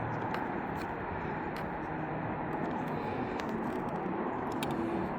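Steady background noise, with a few faint light clicks.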